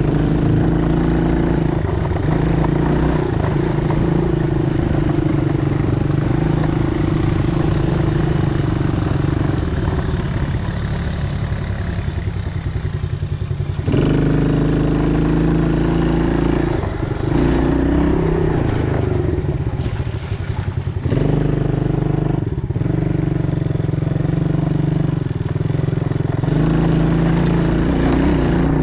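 ATV engine running as it is ridden. The engine note drops and picks up again a few times in the second half.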